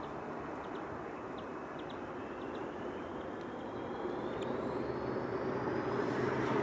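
Heritage diesel locomotive approaching out of sight, its engine noise growing steadily louder, with a thin whine rising in pitch.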